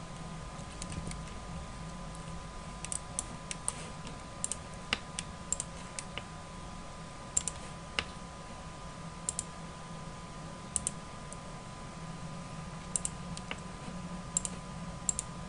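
Scattered clicks of a computer mouse and keyboard at an irregular pace, some in quick pairs, over a faint steady hum.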